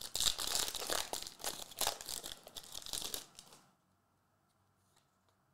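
Foil wrapper of a 2022-23 Contenders basketball trading-card pack being torn open and crinkled in the hands, a dense crackling rustle that stops about two-thirds of the way in.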